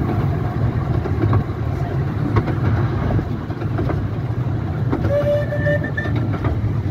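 Romney, Hythe and Dymchurch Railway miniature steam train running: a steady low rumble with scattered clicks of the wheels over the rail joints. About five seconds in comes a short whistle blast lasting about a second.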